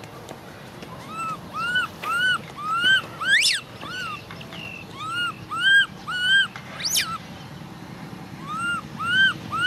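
Baby macaque crying over and over in short, rising-then-falling calls that come in quick runs. It gives two shrill upward-sweeping squeals, near the middle and again about two-thirds of the way through.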